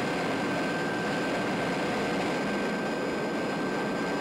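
Northrop F-5A fighter's twin J85 turbojets running as it taxis: a steady, even jet noise with a constant high whine over it.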